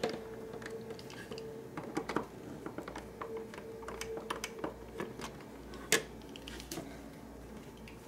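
Scattered small plastic clicks and taps from a refrigerator dispenser's control-panel housing and a screwdriver being handled, with the sharpest click about six seconds in, over a steady hum.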